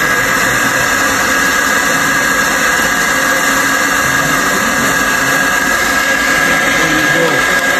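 Handheld hair dryer running steadily on high, blowing air into a bed of charcoal in a grill to get the coals burning: a loud, even rush of air with a steady high whine from the motor.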